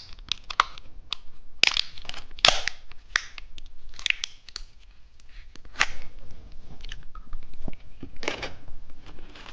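Plastic candy wrapper crinkling and tearing as a caterpillar gummy is unwrapped by hand, in irregular sharp crackles with a few louder rips.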